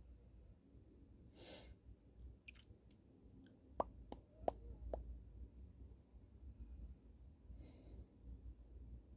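Faint room tone with two short breathy exhales, about a second and a half in and near the end, and a few sharp light clicks around the middle.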